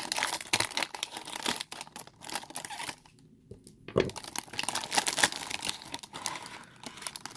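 Blind-bag packaging being torn open and crinkled by hand, in dense crackly bursts. There is a short pause about three seconds in, then a single sharp click about four seconds in, followed by more crinkling.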